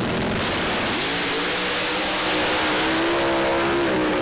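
1963 split-window Corvette drag car's engine at full throttle, launching down the drag strip: a loud, hissing racket with an engine note that climbs about a second in and then holds, growing louder after about two seconds.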